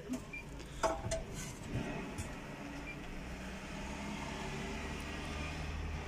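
Dishes being washed by hand at a caravan sink: a few clinks and knocks of crockery about one and two seconds in, over a steady low hum that grows a little stronger in the second half.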